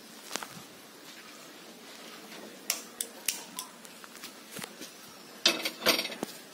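A few light clicks, then a steel kadai set down on the grate of a two-burner gas stove, with a quick run of loud metal clanks near the end.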